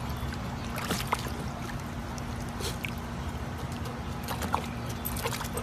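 Shallow pool water splashing and trickling as a golden retriever puppy wades on the submerged pool steps, with scattered small splashes over a steady low hum.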